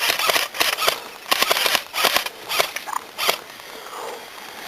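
Rustling and crackling, as of steps and gear pushing through dry brush and leaves close to the microphone, in irregular bursts that die down after about three seconds.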